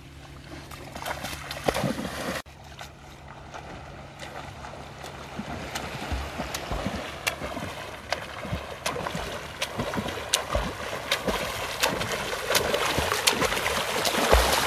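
Water splashing from a swimmer's front-crawl (freestyle) strokes, arms striking the water about twice a second and getting louder toward the end.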